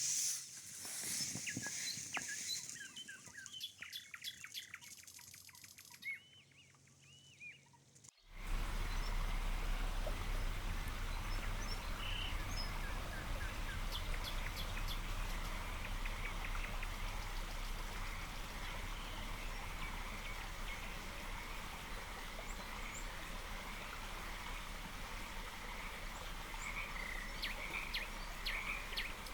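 Birds chirping in the open air. About eight seconds in the sound cuts to a louder, steady outdoor background with birdsong and a chorus of frogs calling.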